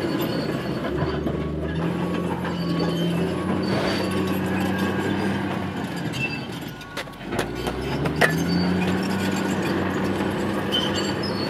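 A heavy engine running steadily. Its note drops away a little past the middle and rises again, with a few sharp metallic clicks around then.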